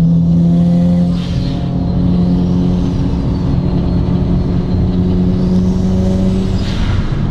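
Turbocharged Mazda 13B-REW streetported rotary engine pulling under load, its note climbing slowly and steadily, with a faint high turbo whistle. The note drops off about a second before the end as the throttle is lifted.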